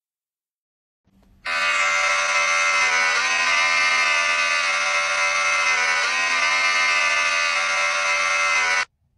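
An electric-shaver simulator app on a smartphone, buzzing steadily through the phone's speaker. The buzz starts abruptly about a second and a half in and cuts off suddenly near the end.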